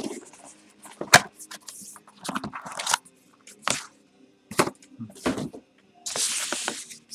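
Cardboard trading-card boxes being handled: a string of short taps, clicks and scrapes as a box lid is opened and a small inner box is slid out and set down on the table, with a longer scrape about six seconds in.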